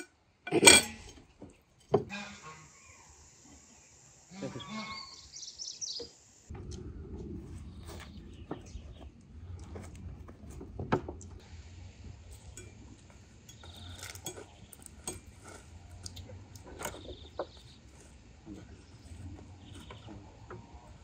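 Cutlery and dishes clinking and knocking on a table as food is served, with a sharp loud knock under a second in and scattered light clicks after.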